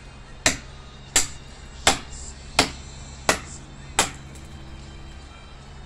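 A small machete chopping into the base of a dry branch: six sharp strikes about 0.7 seconds apart, stopping about four seconds in.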